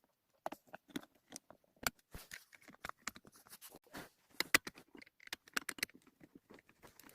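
Irregular handling noises: scattered taps, clicks and rustling of objects being moved about, with the sharpest clicks about two and four and a half seconds in.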